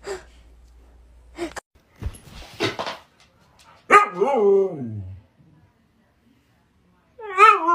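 Huskies vocalizing at each other in their howl-like 'talking' way: a drawn-out call sliding down in pitch about four seconds in, and another wavering call starting near the end, after a few short scuffling noises.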